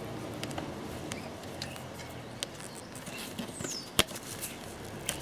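Light clicks and ticks of hands working a bicycle's rim brake, with one sharp click about four seconds in. A short falling bird chirp comes shortly before it.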